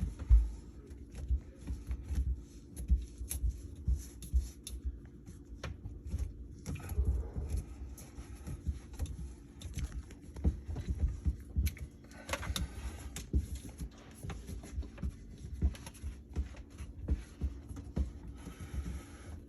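Irregular knocks, clicks and low thumps with brief scrapes from working a wrench and hands on a P-trap slip nut under a sink to loosen it, over a steady low hum.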